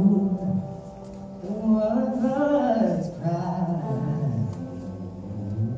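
Male voice singing two long, sliding held notes over piano in the song's closing phrases.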